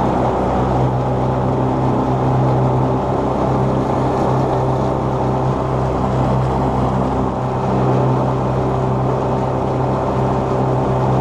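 Small tiller-steered outboard motor running steadily under way, pushing a small fishing boat along at speed, with water rushing along the hull.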